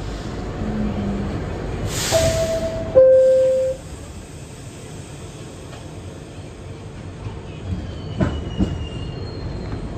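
Inside an R62 subway car: low rumble, then a burst of air hiss followed by a two-note falling chime, the door chime that warns the doors are closing. A few sharp knocks come near the end.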